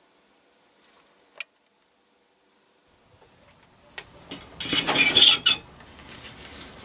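Metal hand tools clinking and clattering as they are handled on a wooden workbench. A loud burst of sharp clinks comes about two-thirds of the way in, after near silence broken by one small click.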